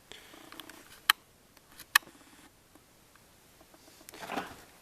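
Quiet room with faint rustling and two sharp clicks about a second apart, then a short breathy noise near the end.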